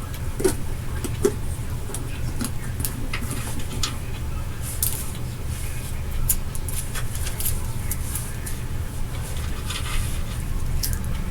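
Hands working on a smoke detector's parts: scattered small clicks and taps at irregular intervals, over a steady low hum.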